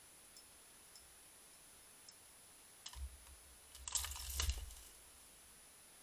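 A badger pulling a hanging peanut feeder down off its post: a click about three seconds in, then a short burst of rattling and clattering about a second later over a low rumble. A few faint ticks come before it.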